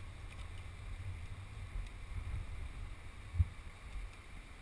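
Low rumble of wind buffeting a helmet-mounted microphone, with a single thump about three and a half seconds in.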